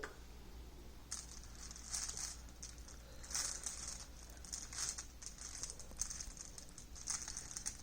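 Hands rummaging through a container of small loose items, giving irregular bursts of rattling and rustling from about a second in.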